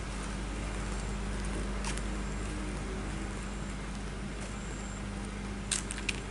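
Steady low hum of an idling vehicle engine, with a single click about two seconds in and a few sharp clicks near the end.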